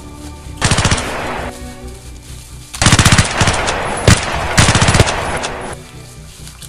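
Bursts of automatic gunfire: one short burst about half a second in, then two longer bursts around three and four and a half seconds in with a single shot between them, over background music.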